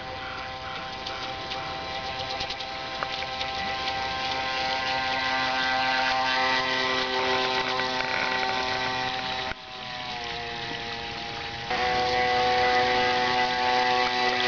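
Electric motor and drive train of an RC model runabout (Kyosho AP-29-type motor) running at speed with a steady whine of several tones, growing louder as the boat comes near. About ten seconds in the whine drops and sinks in pitch for a couple of seconds, then comes straight back up. The owner describes this boat's drive shaft as badly vibrating.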